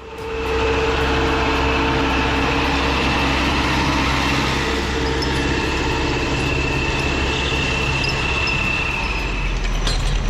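Heavy diesel machine engine running steadily under load, with a steady high whine over a deep rumble.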